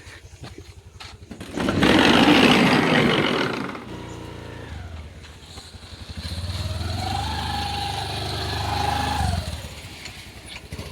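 A loud rushing noise for about two seconds, then a motor vehicle engine whose pitch rises, holds steady for a couple of seconds and cuts off.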